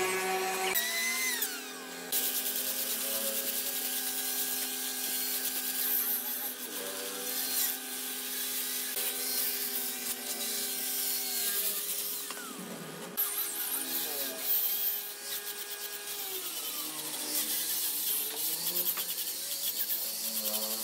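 Angle grinder with a sanding disc running against a wooden frame: a steady motor whine over the hiss of abrasive on wood. The pitch drops and wavers around the middle and again in the last few seconds.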